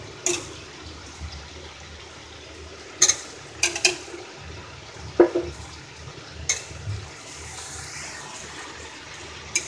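A metal spatula clinking and scraping against a stainless steel kadai as sliced bitter gourd and potatoes are stirred, several sharp clinks over a steady hiss.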